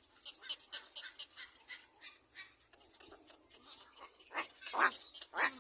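A baby bird's begging calls: rapid high chirps, about five a second, then a few louder, harsher screams near the end.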